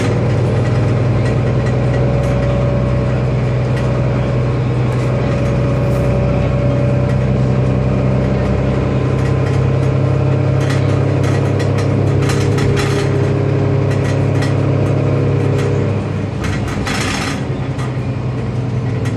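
Mercedes-Benz Citaro city bus heard from inside the passenger cabin while driving: a steady engine drone under loose rattling and clattering that goes on and on, with bursts of sharper rattles in the middle and near the end. The engine sound eases off a little about sixteen seconds in.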